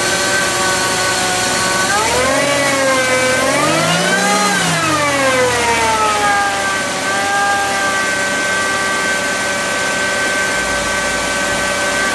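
Supercharged Subaru FB25 2.5-litre flat-four with a belt-driven Eaton M65 supercharger, running on its first start after the install. It idles steadily, is revved once about two seconds in, its pitch climbing and falling back to idle over about four seconds, and holds a steady idle, showing it idles on the supercharger with the stock tune.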